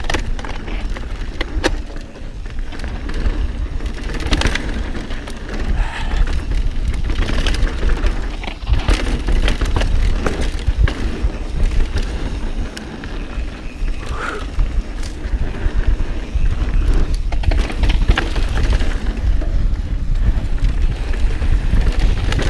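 Mountain bike riding fast down a dirt trail: heavy wind rumble on the camera microphone over tyre noise, with frequent sharp clicks and knocks from the bike rattling over rough ground.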